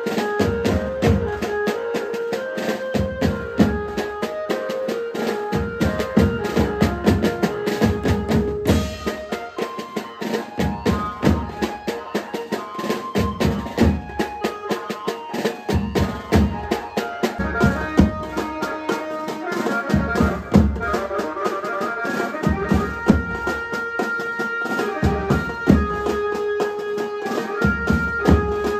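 Mumbai banjo-party band playing dance music for dandiya: an electronic keyboard carries the melody over large drums beating a steady rhythm.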